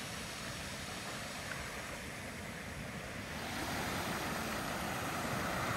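Ocean surf washing in over a rocky shore: a steady rush of waves that grows a little louder about three and a half seconds in.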